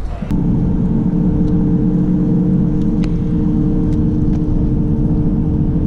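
Small outboard motor on an inflatable tender, running at a steady speed. It cuts in suddenly just after the start and holds an even drone with a steady hum.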